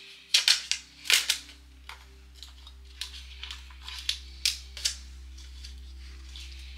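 Sharp clicks as a laptop SO-DIMM memory module is pushed back into its slot and its retaining clips snap: a quick run of loud clicks in the first second and a half, then softer clicks between about three and five seconds, over a low steady hum.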